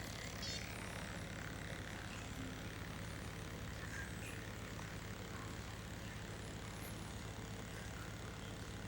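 Steady low hum of room background, even throughout, with faint small incidental sounds.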